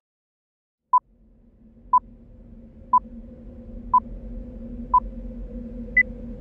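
Film-leader countdown beeps: short, single-pitch beeps one each second, then one final beep at a higher pitch near the end. Under them, a low drone comes in about a second in and slowly grows louder.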